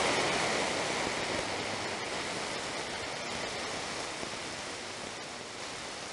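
Steady hiss of static from a CB radio receiver with no station transmitting, slowly fading lower.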